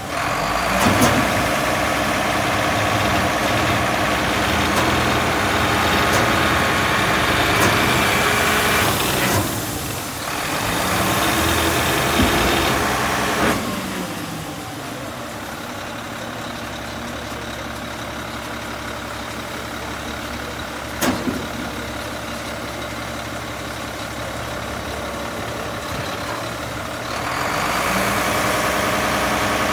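McNeilus MSL side-loader garbage truck's diesel engine running at raised speed to drive the packer hydraulics, with a short dip about nine seconds in. About fourteen seconds in it drops to a steady idle, broken once by a sharp knock, and near the end it speeds up again for the next packing cycle.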